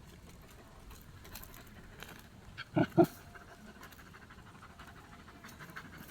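A dog gives two short, quick barks, one right after the other, about three seconds in.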